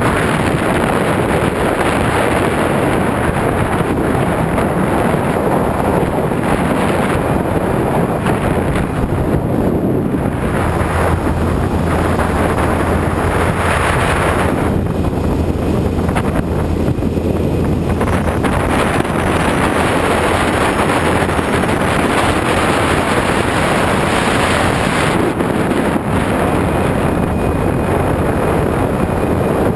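Wind rushing over the microphone of a camera on a moving touring motorcycle, over the motorcycle's engine running at road speed. A low steady engine note stands out from about a third of the way in until a little past halfway.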